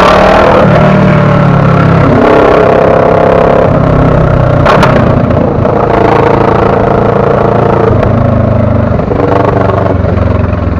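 Motorcycle engine running while riding, its pitch stepping up and down several times with the throttle. There is a brief sharp noise about five seconds in.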